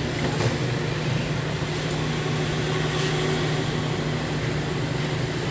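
A motor-driven machine running steadily with a low, even hum, with a light click about half a second in.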